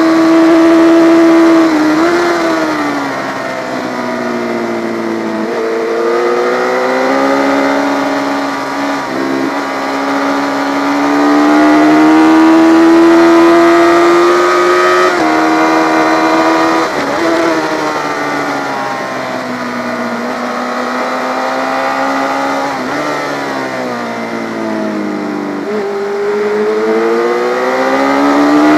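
Yamaha FZ600 race motorcycle's inline-four engine at racing speed, its pitch repeatedly climbing through the revs and dropping away with sudden steps at gear changes, with longer high-revving runs on the straights.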